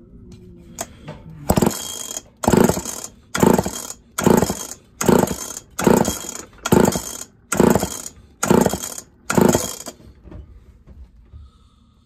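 Recoil starter of a Homelite Super XL-130 chainsaw pulled ten times in quick succession, a little under a second apart, each pull spinning the engine over without firing during a compression test.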